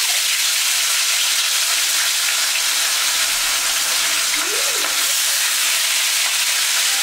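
Seasoned barracuda slices frying in a hot pan: a steady, loud sizzle.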